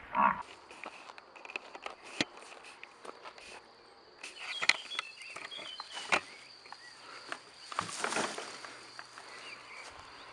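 Footsteps on a dirt path with the rustle of a plastic rubbish bag carried by its tie handles, and scattered small knocks; the rustling thickens about four to five seconds in and again around eight seconds.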